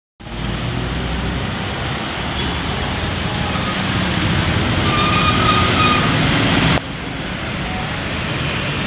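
Steady street traffic noise from a busy wet road: passing trucks and cars with the hiss of tyres on wet tarmac, dipping slightly about seven seconds in.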